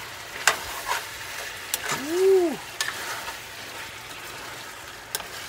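Food sizzling as it fries in a pan, with a utensil clicking against the pan a few times as it is stirred. About two seconds in, one short call rises and falls in pitch.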